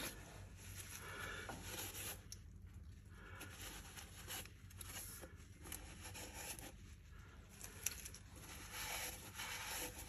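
Faint scraping and rustling of a gloved hand handling the gears and shaft inside an open lathe headstock wet with flushing kerosene, over a low steady hum, with one sharp click about eight seconds in.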